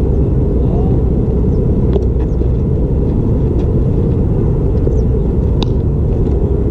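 Steady, loud low rumble of wind buffeting the camera microphone, with a few faint sharp clicks over it.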